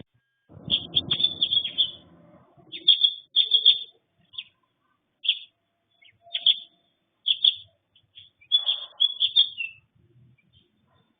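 Sparrows chirping: many short, high chirps in irregular clusters, with a soft rustling noise under them twice.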